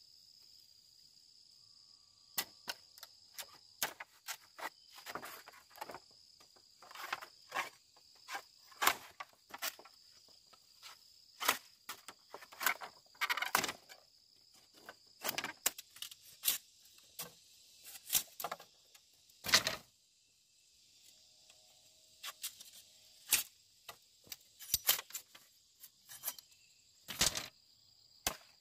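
Insects chirring steadily in a high, even drone, with irregular sharp clicks, knocks and rustles throughout, a few of them louder.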